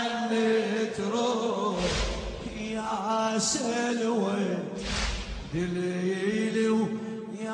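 Male voice chanting a Shia latmiya elegy in Arabic, holding long, bending melodic notes. A heavy beat sounds twice, about three seconds apart.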